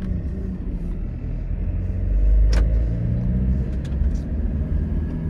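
Car driving, heard from inside the cabin: a steady low rumble of engine and tyres on a rough road, with a single sharp knock about halfway through.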